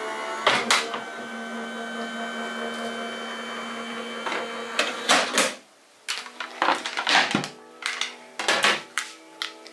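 Sizzix Switch Plus electric die-cutting machine running, its motor humming steadily and quietly as the rollers draw an embossing folder and plates through, with a few clunks. It stops briefly about six seconds in, then hums again among a quick run of clicks and knocks.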